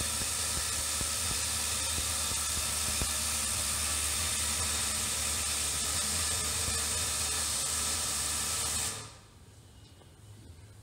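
Steam hissing steadily out of an autoclave's pressure control valve, which has opened as the chamber pressure passed 15 PSI and is venting to hold it there. The hiss stops abruptly about nine seconds in.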